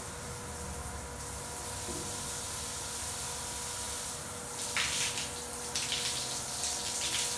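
Water pouring from an overhead rain shower head onto a tiled floor, a steady hiss. From about two-thirds of the way in, a forearm held in the spray breaks the stream into louder, uneven splashing.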